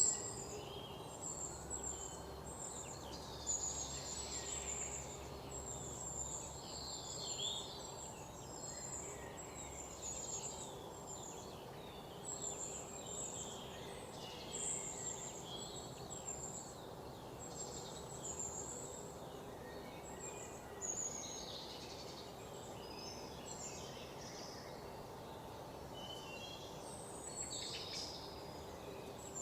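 Many small birds chirping, short high calls scattered all through, over a steady faint hiss of background noise.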